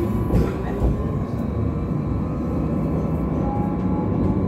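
Interior running sound of an Alstom Citadis X05 light rail tram under way: a steady low rumble of wheels on rail with a faint steady whine, and a couple of short knocks in the first second.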